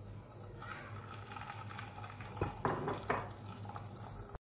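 Egg-coated potato-chicken kababs sizzling in hot oil in a frying pan, the sizzle building up about a second in. A few sharp, louder sounds come about two and a half to three seconds in, as a second kabab goes into the oil, and the sound cuts off abruptly just before the end.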